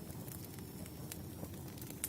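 Campfire burning steadily with a low rumble, and small crackles and pops coming irregularly.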